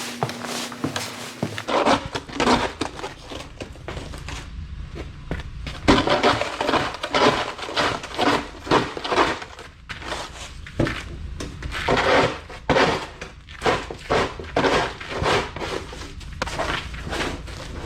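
Snow crunching in a long series of irregular crunches, over a low steady rumble that comes in about two seconds in.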